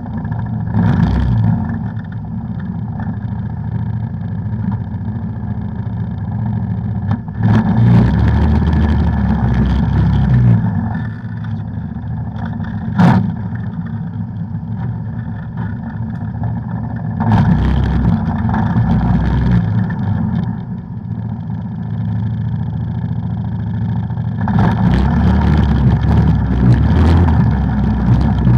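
Off-road vehicle engine running steadily while riding a trail, with the throttle opened up in three louder surges, the last near the end. There is one sharp knock near the middle.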